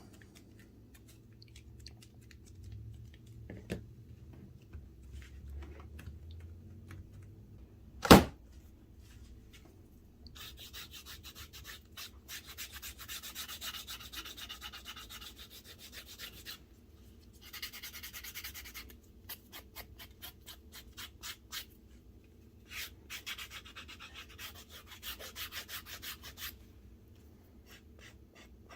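Quick back-and-forth rubbing or sanding strokes on leather, in three spells of several seconds each. Before them, a single sharp knock about eight seconds in.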